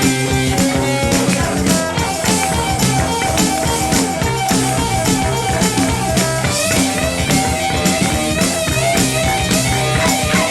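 Instrumental stretch of a rock and roll recording: electric guitar playing over a steady drum kit beat, with no vocals.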